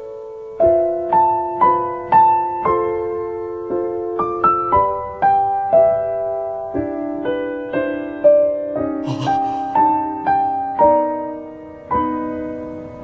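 Soft piano music: a slow melody of single struck notes over gently held chords.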